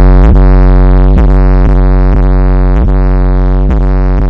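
Electronic auto bass music played very loud through a Philips FWM6500 mini hi-fi system: a deep, sustained synth bass note, broken by short dips in pitch about every half second.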